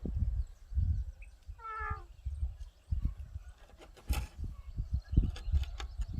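Farm gate hinge giving one short squeak that falls in pitch about two seconds in, amid low thuds and rumbles as the gate moves. A sharp knock comes about four seconds in.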